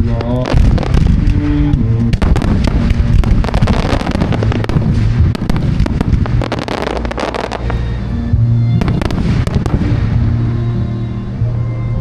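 Fireworks going off in rapid, dense succession, many bursts and crackles overlapping, with music playing loudly underneath.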